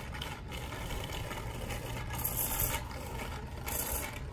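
Bicycle tyres rolling over a rough paved path: a steady scraping hiss over a low rumble, with the hiss brightening briefly twice.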